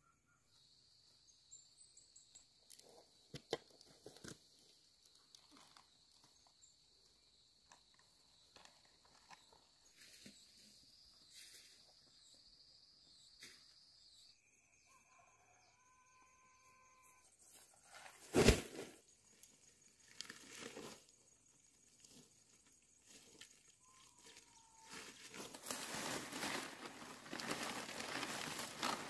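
Long green palm leaves rustling as they are handled and gathered, loudest near the end. Earlier there are faint rustles and steps under a steady high whine, and a single sharp knock about two-thirds of the way through.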